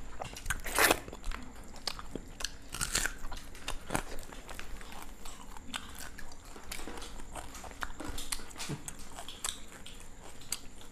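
People eating chicken curry and rice with their hands: chewing, with many short clicks and brief noises from mouths, fingers and plates, and two louder short noisy sounds about one and three seconds in.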